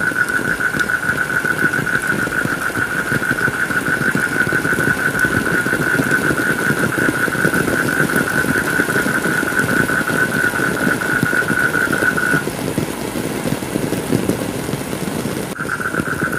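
Steady heavy rain, with a constant high, rapidly pulsing tone laid over it that stops about twelve seconds in and comes back near the end.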